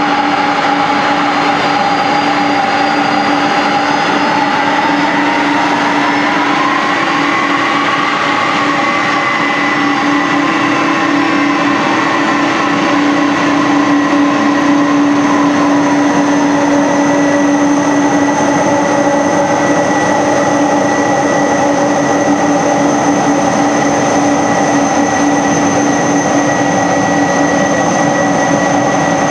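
McDonnell Douglas MD-11 freighter's three jet engines at taxi power as the aircraft taxis: a loud, steady rumble carrying a high engine whine. One tone rises slightly about six to nine seconds in, then holds steady.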